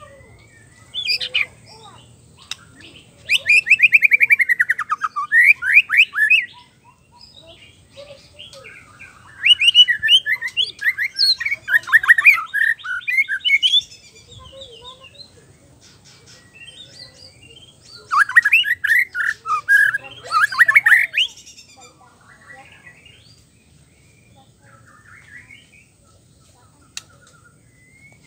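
White-rumped shama singing in four bursts of fast, varied phrases separated by pauses of a few seconds. The second burst holds a quick falling run of notes, and only a few faint notes follow near the end.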